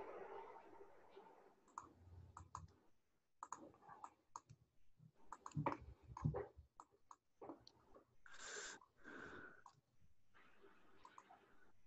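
Faint, scattered clicks of a computer mouse and keyboard, bunched most thickly around the middle, with a brief soft rush of noise a little later.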